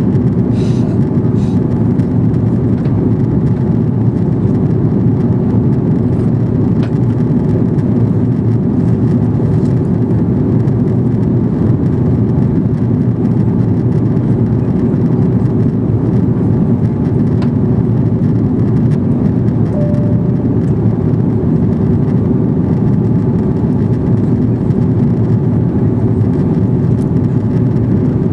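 Steady cabin noise of an Airbus A330 airliner descending to land: engine and airflow rumble heard from inside the cabin, with a few faint clicks about a second in.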